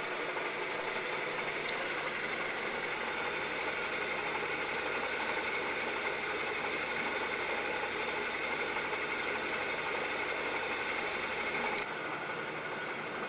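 Bridgeport milling machine cutting a half-inch keyway in a shaft with a coated high-speed-steel two-flute end mill under power feed: steady spindle and cutting noise. About twelve seconds in the sound quietens slightly and loses some of its low end as the cut reaches its end.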